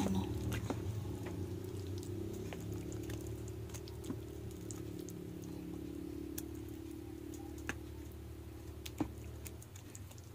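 Plastic spoon stirring thick mashed-banana batter in a basin, giving scattered light clicks and taps against a steady low hum.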